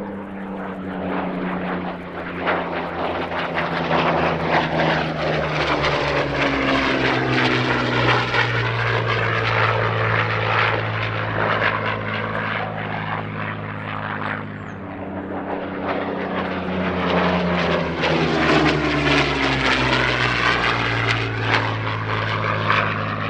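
Supermarine Spitfire Mk Vb's Rolls-Royce Merlin V12 engine and propeller in fast flypasts, the engine note dropping in pitch as the fighter goes by. The sound fades about two thirds of the way through, then swells again as it comes round for another pass.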